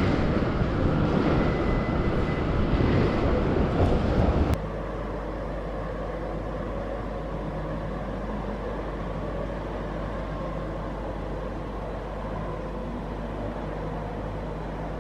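Steady rumbling running noise heard from inside a moving vehicle. It cuts off abruptly about four and a half seconds in, giving way to a quieter, even hum.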